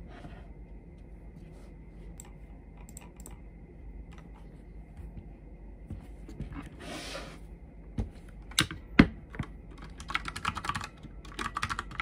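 Quiet handling of a tablet's folding case with faint clicks and a short rub, then two sharp knocks on the desk, the loudest sounds. About ten seconds in, fast typing starts on a Redragon K530 mechanical keyboard: a rapid run of clacking keystrokes.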